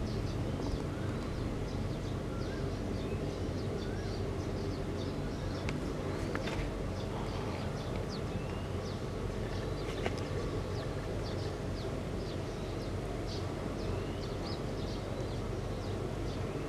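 Small birds chirping and twittering again and again, with quick short chirps and little rising calls, over a steady low outdoor rumble.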